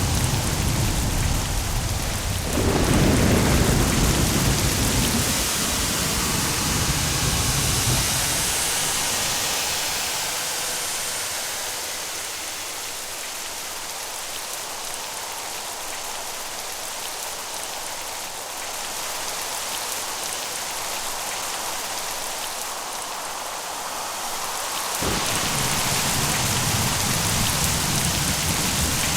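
Steady heavy rain with thunder. A loud roll of thunder breaks about two and a half seconds in and rumbles away over several seconds, leaving the rain on its own. Low rumbling starts again suddenly near the end.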